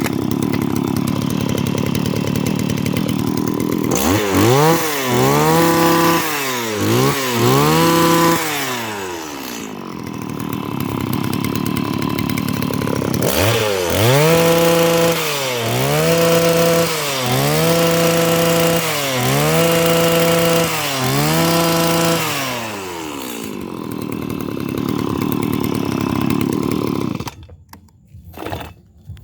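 Stihl FS85 brush cutter's small two-stroke engine running, revved up and back down repeatedly: three quick revs, a short spell at idle, then six revs each held for about a second. It settles back to idle and stops near the end.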